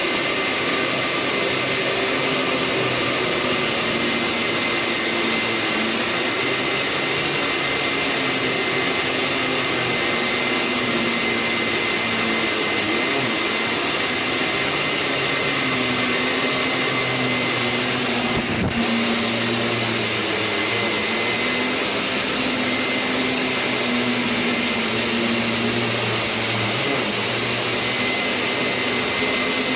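Hyla water-filter vacuum cleaner running steadily while its nozzle is drawn over a mattress in slow strokes; the motor's tone wavers slightly as the suction is loaded and freed. A brief dip in the sound about two-thirds of the way through.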